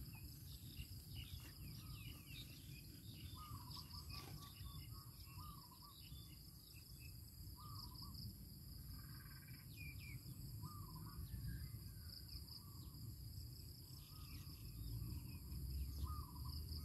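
Rural field ambience: insects keep up a steady, high, thin drone, while short chirping calls repeat every second or two over a low rumble.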